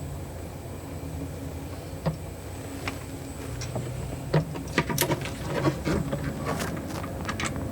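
Scattered clicks and knocks of hand tools and hardware being handled during console repair work, coming thicker in the second half, over a steady low hum.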